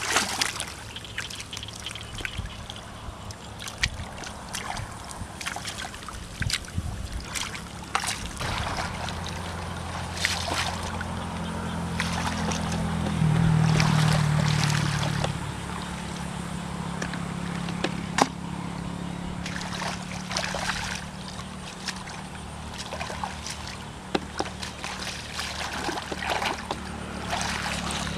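Hands splashing and sloshing through shallow muddy water while groping in the mud for fish, in scattered short splashes. A low steady hum comes in about a third of the way through, loudest around the middle.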